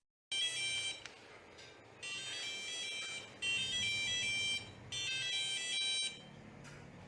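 Micro:bit door alarm playing a quick electronic tune of stepping beeps, set off when its sensor detects movement at the door. It sounds in about four bursts of roughly a second each, with another starting near the end.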